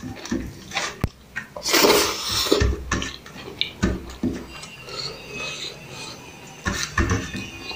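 Close-miked eating sounds of a man eating vegetable biryani by hand: wet chewing and mouth smacks in irregular bursts, the loudest about two seconds in, with fingers working rice on a steel plate.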